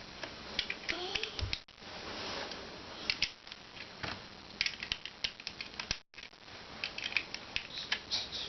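Clusters of small, sharp clicks and rattles of Lego plastic parts being handled, with the sound cutting out briefly twice.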